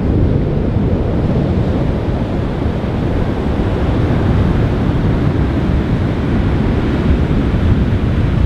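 Wind buffeting the microphone over the steady rush of ocean surf, a dense low rumble with no distinct events.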